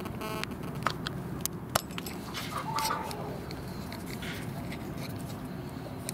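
A few sharp clicks of a screwdriver working the upper oil plug on an outboard motor's gearcase as it is opened for an oil drain, over a steady low background rumble.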